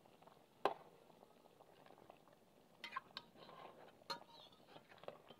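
Pork pieces simmering in a little water in an enamel pot: faint bubbling with a few soft pops scattered through it.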